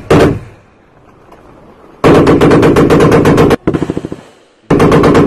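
Machine gun firing in bursts close by: a short burst at the start, a long burst of about a second and a half around two seconds in, and another burst near the end, each trailing off in a brief echo.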